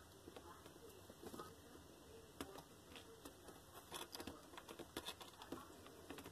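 Two month-old Highlander kittens wrestling on a fleece cat bed: faint scratching, rustling and soft tapping of paws and claws, busiest around the middle of the stretch.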